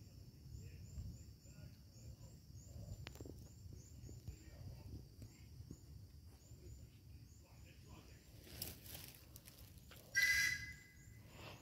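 Faint, high, rapid chirping runs throughout. Near the end a locomotive whistle gives one short blast, two high tones over a hiss.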